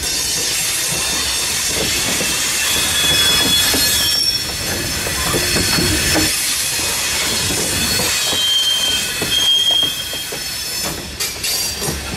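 Freight train cars rolling past with a rumble and some clicking, and several brief high-pitched wheel squeals.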